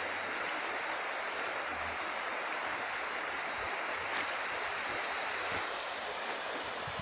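River current flowing steadily in a shallow, rushing hiss, with a brief click about four seconds in and a sharper one about five and a half seconds in.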